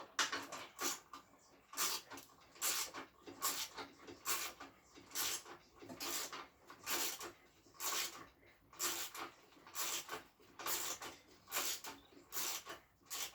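Ratchet wrench being worked back and forth to tighten a bolt, in regular strokes of about one a second, each stroke a short burst of clicks.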